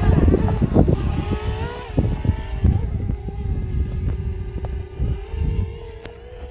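Gusty wind buffeting the microphone over the steady whine of a DJI Mavic Mini's propellers as the drone hovers low and moves off a few metres; the whine rises slightly in pitch near the end.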